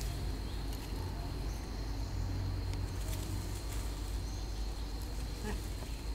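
Forest ambience: a steady, thin, high insect drone over a constant low rumble, with a few faint clicks and rustles.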